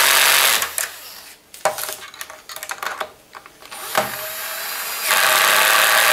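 Cordless drill-driver driving screws to fix metal toggle clamps to a wooden jig board. It runs at the start and stops within the first second. A few clicks and knocks follow as it is moved, and it runs again for the last second or so.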